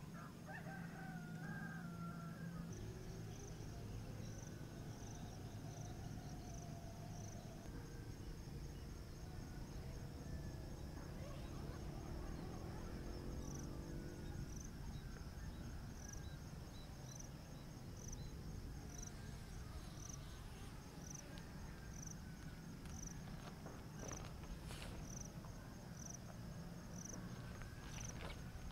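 Insects trilling on a grassy hillside at dusk: a steady high-pitched trill with a chirp repeating about once a second, over a low steady rumble. A few faint clicks or rustles come near the end.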